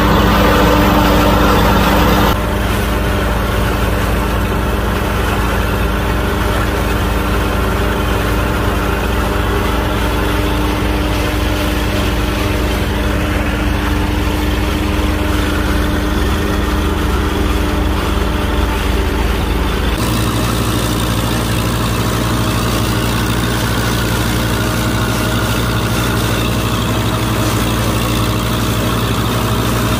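IMT 558 tractor's diesel engine running steadily. The sound changes abruptly twice, about two seconds in and about two-thirds of the way through.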